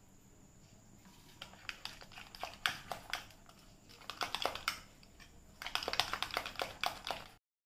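Metal spoon stirring a thick mayonnaise sauce in a glass bowl, clicking and scraping against the glass in a run of irregular light clicks that grow busier in the second half and stop abruptly near the end.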